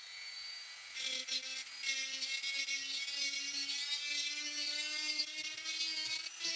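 Dremel 3000 rotary tool with a no. 191 high-speed cutter running, then cutting into a plastic electrical box about a second in, a steady whir with a gritty hiss as the bit grinds a hole.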